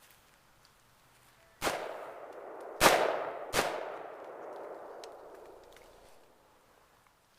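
Three rifle shots a little over a second apart, the second the loudest, each followed by a long echo that fades away over a few seconds.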